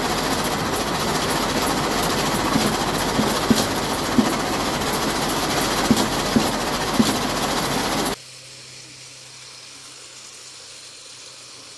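Fruit weight-sorting conveyor line running: a loud, dense machinery noise with a few sharp knocks. About eight seconds in it cuts off abruptly to a much quieter steady low hum.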